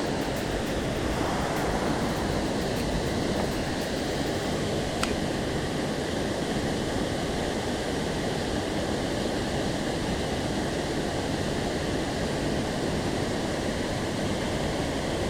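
Mountain stream water rushing steadily, an even hiss, with one sharp click about five seconds in.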